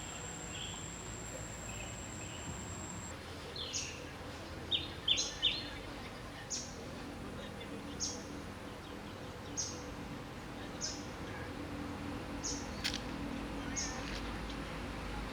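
Short high-pitched chirps from a small animal, repeating about every second and a half, with a quick cluster of falling squeaks about four to five seconds in. A steady thin high whine sounds underneath at first and stops about three seconds in.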